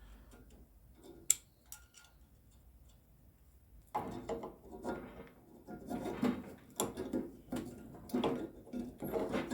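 Hard objects being handled on a workbench: a single sharp click about a second in, then irregular clattering and knocking from about four seconds on.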